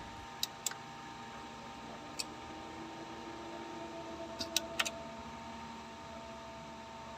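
Faint steady electrical hum with a few steady tones, broken by several short sharp clicks, twice near the start and a cluster of three a little over halfway.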